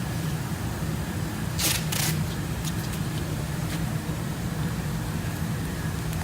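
A steady low machine hum runs throughout, with two short rasps about one and a half and two seconds in, as masking tape and paper are pulled and pressed around a car headlight.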